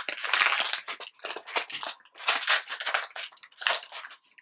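Trading card pack wrapper crinkling and tearing in a run of short bursts as it is peeled open by hand.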